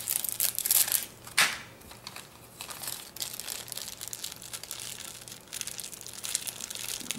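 Plastic packaging crinkling and rustling as it is handled. It is loudest in the first second and a half, with one sharp crackle, then goes on quieter and more scattered.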